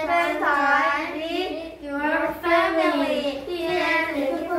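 Children singing a song in their high, young voices.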